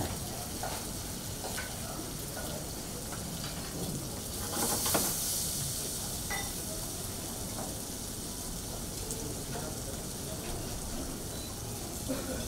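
Food sizzling as it fries in pans, a steady hiss with a few light clicks of utensils, and a brief louder hiss about four and a half seconds in.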